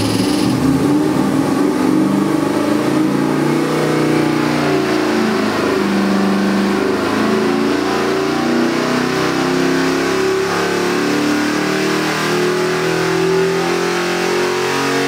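LS 427 cubic-inch V8 crate engine running under load on an engine dyno during an RPM sweep test. It revs steadily upward from about 1,500 to over 5,000 rpm, the pitch climbing throughout.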